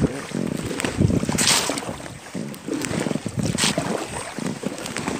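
Double-bladed kayak paddle stroking through river water beside an inflatable kayak, with two splashes about two seconds apart. Wind rumbles on the microphone.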